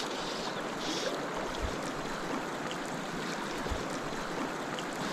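Shallow, clear river running over cobbles in a steady rush, with a couple of faint low bumps.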